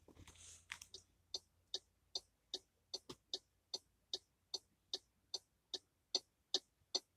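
MG car's hazard-light indicator ticking: an even tick-tock of sharp clicks, about two and a half a second, starting about a second in as the hazards come on.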